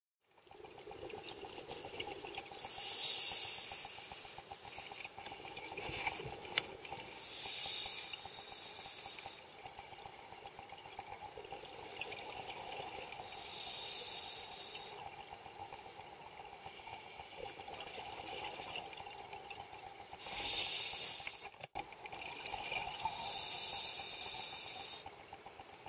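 A scuba diver breathing through a regulator, heard underwater: five bursts of bubbling hiss from exhalations, each lasting one to two seconds and coming every few seconds, over a faint steady hum.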